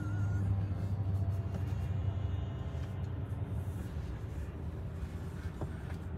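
Steady low rumble of a car heard from inside its cabin, easing slightly over a few seconds, with one brief click near the end.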